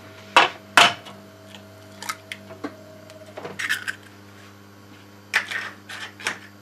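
Eggs being cracked on and into a stainless steel tray: two sharp knocks in quick succession near the start, then scattered lighter clicks and a short crackle of shell.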